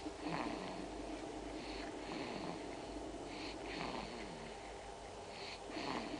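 A sleeping baby snoring and snuffling. There are about four noisy breaths, one every second and a half or so, and some of them end in a short falling tone.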